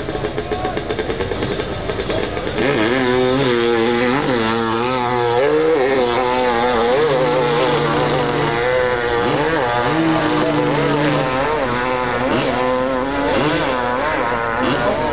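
Dirt bike engine at full throttle on a steep hill climb, growing louder about two and a half seconds in, its pitch rising and falling over and over as the rider works the throttle and the rear tyre hunts for grip.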